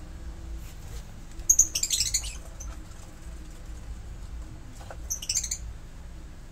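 Lovebirds calling: two short bursts of rapid, shrill chirps, the first about a second and a half in and a shorter one about five seconds in.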